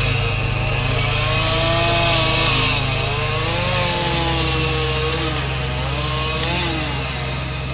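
Chainsaw cutting through a fallen tree, its engine pitch slowly rising and sagging as the bar loads, over a steady low engine hum.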